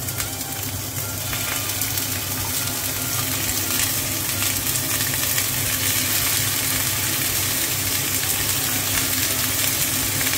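Octopus tentacles frying in hot oil in a pan: a steady sizzle that grows louder over the first couple of seconds as the pieces go in, then holds. The tentacles are being seared to brown and crisp in oil hot enough to fry rather than stew.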